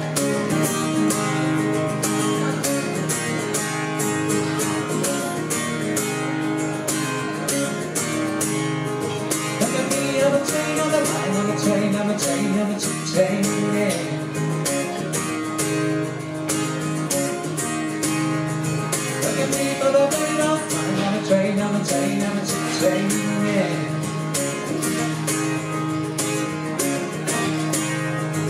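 Live band music: a guitar strummed in a steady rhythm under a male voice singing into a microphone.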